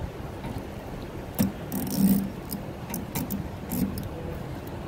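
Small metal clicks and taps of a wrench working a metal tube fitting on clear air tubing, a handful at irregular intervals, the loudest about two seconds in, over a steady low background noise.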